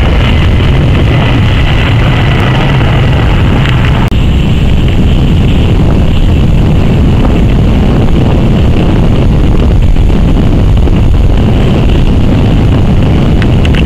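Jet airliner engines running loud and steady, a dense rushing sound. The sound changes abruptly about four seconds in.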